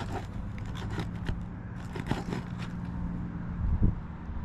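Asphalt roof shingle being pried up with a roof snake shingle remover: scattered scraping and crackling as the tab is lifted and its seal gives, with one louder knock near the end, over a steady low hum.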